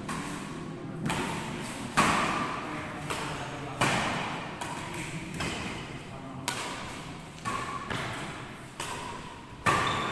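Badminton rally in an indoor hall: rackets striking the shuttlecock in a quick exchange, sharp hits roughly once a second, each ringing briefly in the hall.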